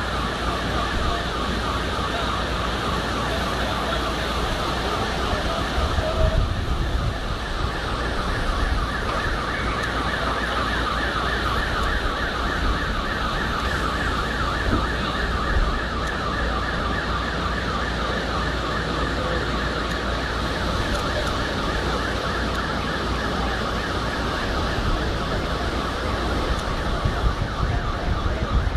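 An electronic siren or alarm sounding continuously in fast, evenly repeated sweeps, over a steady rumbling noise.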